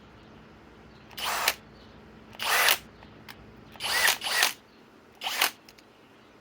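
Master Force Boost brushless cordless hammer drill with a spade bit, run in about five short bursts of under half a second each, with pauses between. These are brief trigger pulls as the drill is restarted after its electronic overload cutout stops it under load.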